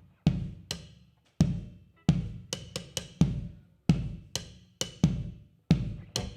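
Drum kit playing an unaccompanied intro beat: bass-drum thuds and snare and cymbal hits, each ringing out before the next, about two strokes a second.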